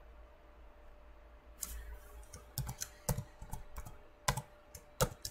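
Computer keyboard being typed on: after a quiet start, a run of irregular keystrokes begins about a second and a half in.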